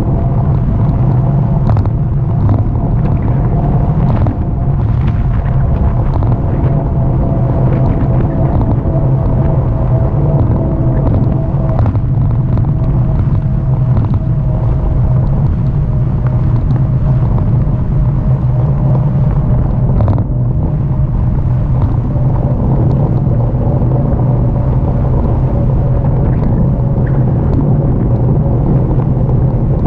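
Steady wind buffeting the microphone and tyre rumble on rough asphalt from a camera mounted low on a moving e-bike, with a faint whine that slowly sinks in pitch.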